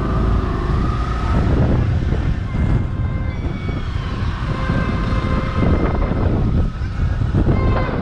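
Motorcycle engine running on the move, with wind buffeting the microphone and a faint high whine drifting in and out.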